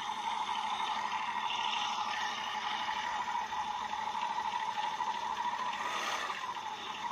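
Small air-cooled motorcycle engine idling, heard through a phone's small speaker, as the throttle on its Tokaido carburettor is worked by hand. The note lifts only briefly near the end and the revs are slow to rise, a hesitation at small throttle that the mechanic suspects comes from a missing needle washer in the slide or a nozzle fitted upside down.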